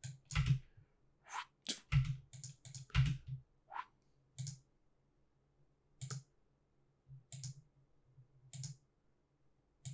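Computer mouse buttons and keyboard keys clicking, about a dozen separate clicks spaced irregularly, some with a soft thud on the desk.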